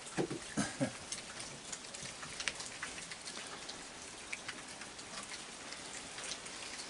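Heavy rain falling steadily, with many separate drops ticking sharply on nearby surfaces. In the first second come three or four short, low sounds.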